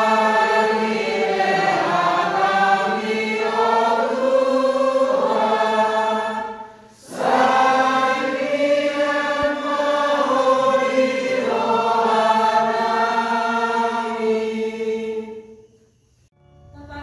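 A priest chanting a sung prayer in Batak Toba. The sung prayer is unaccompanied, with long held notes in two phrases and a short breath between them about seven seconds in, fading out near the end.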